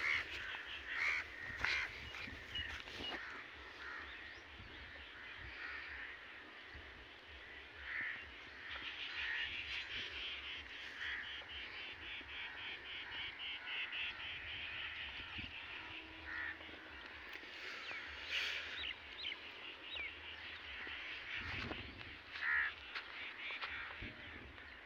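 Birds calling: scattered short calls, with a fast, even run of repeated chirps from about nine to fifteen seconds in.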